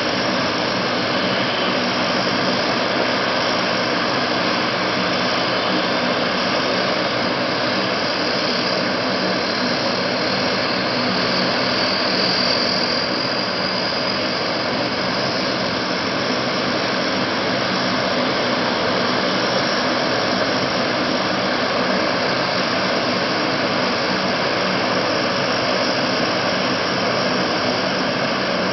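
Lockheed C-130 Hercules's Allison T56 turboprop engines running steadily on the ground with the propellers turning. A faint high whine rises slightly in pitch around the middle.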